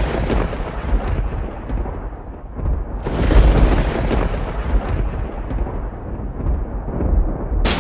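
Deep, noisy rumble that swells twice, like thunder, with a sharp crack near the end.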